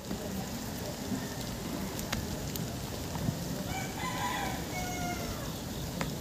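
A rooster crowing once, a single drawn-out call starting a little past halfway and falling in pitch at the end, over a steady outdoor hiss with a few faint ticks.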